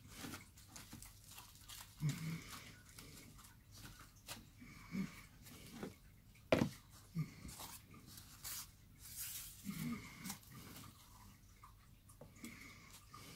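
Aluminium foil crinkling and rustling as it is handled over a glass jar, with scattered light knocks. The loudest is a sharp knock about six and a half seconds in.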